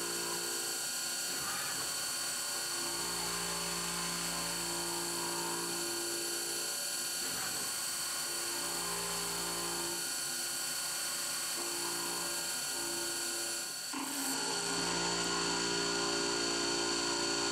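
CNC milling machine cutting aluminium with a three-flute cobalt end mill: a steady high spindle whine and cutting hiss, with a lower hum that steps on and off every second or two as the cut moves along. The sound dips briefly about fourteen seconds in and then runs on slightly louder.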